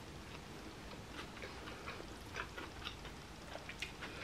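Faint, soft mouth clicks of someone chewing a mouthful of pasta salad, irregular and spaced out.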